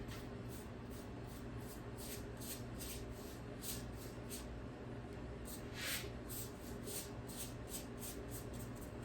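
Pastry brush stroking across fresh pasta sheets: a run of short, soft swishes, one longer stroke about six seconds in, over a steady low hum.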